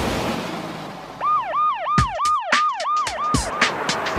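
Cartoon emergency-vehicle siren sound effect: a quick rising-and-falling electronic wail repeating about three times a second. It starts a little over a second in, after a fading whoosh, and has sharp clicks mixed in.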